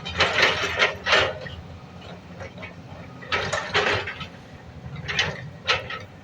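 Excavator-mounted hydraulic breaker hammer working in short, irregular bursts of rapid clattering blows over the steady low run of the excavator's diesel engine.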